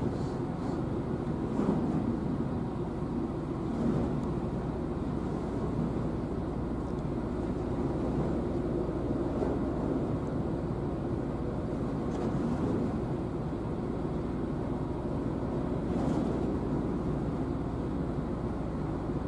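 Steady low rumble of a small coastal tank ship's diesel engine as it motors past.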